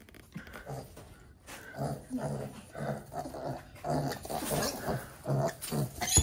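Kunekune pig grunting in a series of short, regular low grunts, about two a second, starting about two seconds in.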